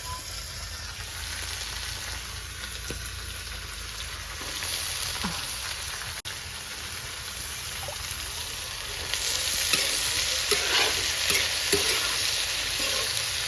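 Radish and potato sizzling in oil in a large karahi while being stirred. The sizzle grows louder about nine seconds in, with short scraping strokes from the stirring.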